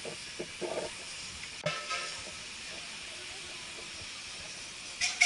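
Steady hiss of steam from a Victorian-style steam launch, with a sudden short sound about a second and a half in. Near the end, a steam whistle starts to blow loudly, sounding several tones at once.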